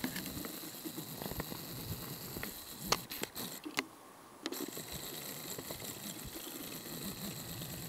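Faint open-air background noise with a few light clicks around the middle, where the sound briefly drops away for under a second.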